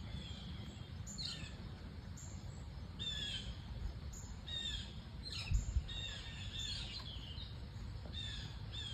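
Birds chirping again and again in short, slurred calls, over a steady low rumble, with one soft thump about five and a half seconds in.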